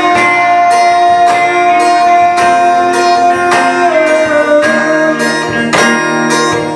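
Music with acoustic guitar strumming in a steady rhythm under a long held melody note, which drops to a lower pitch about four seconds in.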